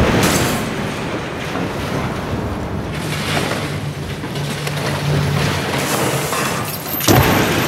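A sudden blast, then a sustained rumbling roar, with a second loud hit about seven seconds in. This is a dramatic explosion as smoke fills a room and furniture and ornaments are thrown over.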